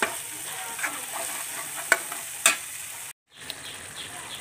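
Curry spice paste and curry leaves sizzling in hot oil in a frying pan, a metal spatula stirring and scraping against the pan a few times. The sound cuts off abruptly about three seconds in, then a quieter sizzle follows.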